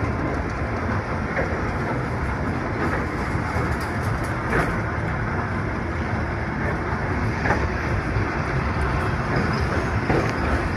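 Volk's Electric Railway car running along the track: a steady rumble with a sharp click every couple of seconds from the wheels on the rails.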